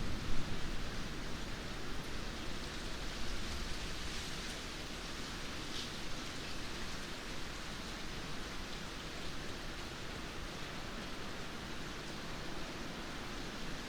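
Steady rainfall, an even hiss of drops, briefly louder with a low rumble just after the start.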